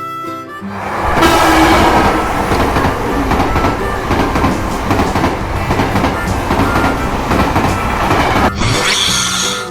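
A train running along the track, a loud steady rumble and clatter; in the last second the sound turns brighter and hissier.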